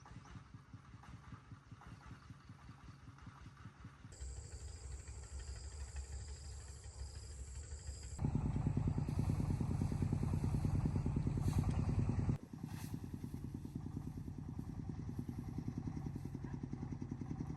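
Single-cylinder diesel engine of a Vietnamese công nông farm truck running. The sound changes abruptly about 4, 8 and 12 seconds in and is loudest between about 8 and 12 seconds.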